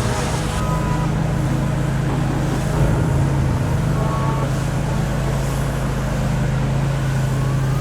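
An engine running steadily at a constant speed, giving an even low hum.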